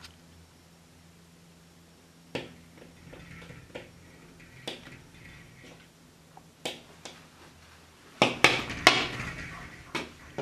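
Oriental pied hornbill knocking its bill against a glass sliding door: single sharp taps a second or two apart, then a quick flurry of loud knocks about eight seconds in.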